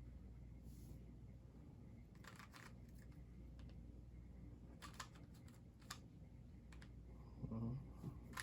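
Plastic Rubik's cube being twisted by hand, a few faint scattered clicks as its layers turn.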